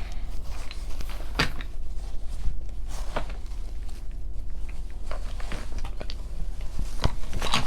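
Wooden jigsaw puzzle pieces clicking and knocking against each other a few times as they are handled and put in, over a steady low hum.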